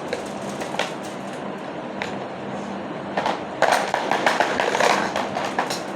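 Plastic toy doctor-set pieces being handled: a few light clicks, then a burst of rattling and clattering about three seconds in as the pieces knock together and fall.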